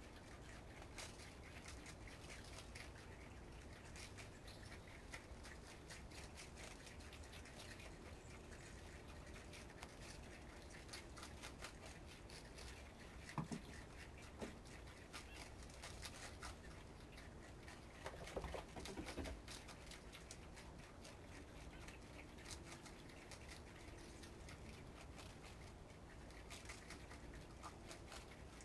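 Faint, crisp crunching of groundhogs chewing lettuce leaves, a run of small clicks. There are a couple of louder knocks about halfway through and a short louder cluster a little later.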